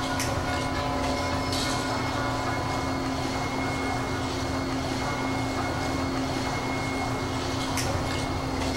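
A boat's motor running steadily: an even low drone with a constant hum, with a few faint brief hisses over it.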